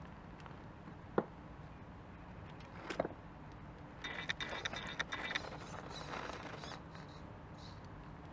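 Homemade 1/10-scale RC rock crawler working over stones: a sharp click of hard parts on rock about a second in and another near three seconds, then a short stretch of high electric whine with rattling clicks as it drives and steers, fading out about three seconds from the end.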